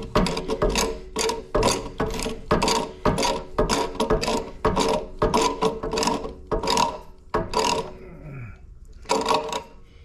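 Ratcheting pipe cutter clicking as it is squeezed through a CPVC pipe, about two to three clicks a second, pausing near the end before a few more clicks.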